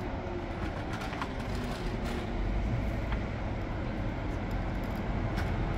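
Street traffic with an articulated city bus approaching: a steady low rumble, with a faint engine whine that drops in pitch over the first two seconds.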